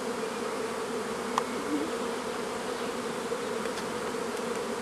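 A honeybee colony humming steadily from an opened hive, with bees on a frame lifted out of the brood box. A single short click sounds about a second and a half in.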